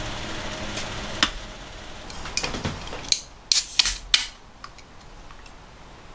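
Metal bowl knocking and scraping against an aluminium pot as cooked rice is served, with one sharp knock about a second in. About three seconds in come several sharp cracks and a short hiss as a pull-tab drink can is opened; this is the loudest part.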